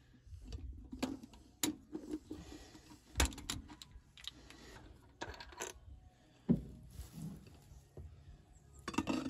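Metal oil filter canister on a truck engine being turned and worked loose by hand: scattered clinks, rubbing and scraping, with two sharper knocks about three and six and a half seconds in.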